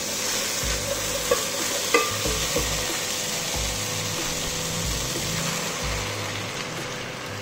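Wooden spoon stirring and scraping a thick potato-and-peas masala in a nonstick pot, over a steady frying sizzle. A couple of sharp spoon knocks about one and two seconds in.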